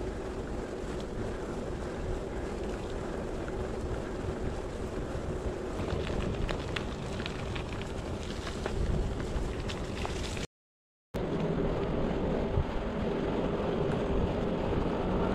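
Wind buffeting the microphone over the rolling of bicycle tyres on road and towpath, with a steady faint hum and scattered crackling clicks in the middle stretch. The sound cuts out completely for about half a second, about two-thirds of the way through.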